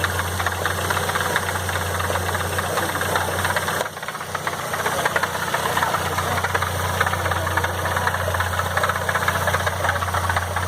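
Chevrolet Vectra CD 2.0 16v four-cylinder engine running at a steady speed with a strange rapid ticking clatter over its hum, the abnormal engine noise being investigated. The level dips briefly about four seconds in, then carries on as before.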